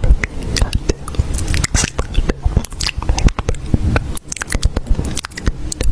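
Close-up crunchy chewing and biting of food: a dense run of irregular sharp crunches with soft low thumps.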